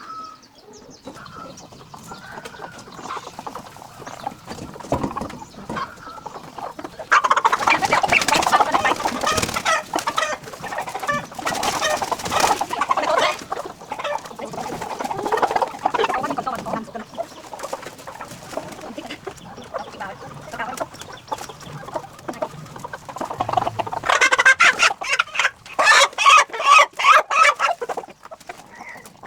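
Chickens clucking and squawking, with loud bursts about seven seconds in, again around twelve seconds, and near the end.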